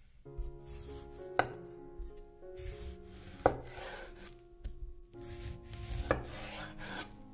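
Chef's knife slicing through a ripe tomato on a wooden cutting board: rasping cuts through the skin and flesh, and three sharp knocks as the blade meets the board, about a second and a half in, about three and a half seconds in, and at about six seconds. Soft background music with held notes plays underneath.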